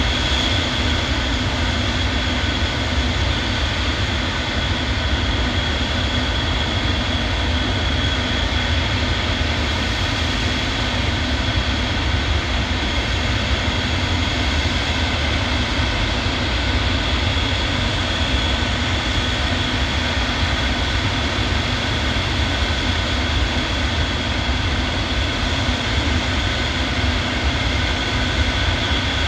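Antonov aircraft's engines running steadily, a loud constant drone with a low rumble and a thin high whine held at one pitch.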